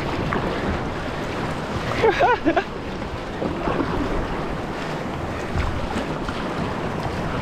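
Ocean surf washing and wind buffeting the microphone as a kayak rides the waves in. About two seconds in, a short, loud, wavering cry with a bending pitch cuts through.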